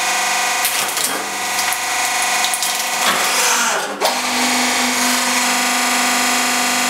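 100-ton hydraulic press running steadily while its ram crushes a small cup, with crackling and cracking as the cup gives way and a sharp break about four seconds in. After the break the pump's hum settles onto a new steady low tone.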